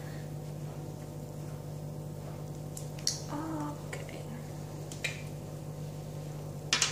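Small makeup containers being handled: a handful of sharp plastic clicks and taps, two close together about three seconds in and a pair near the end, over a steady low hum.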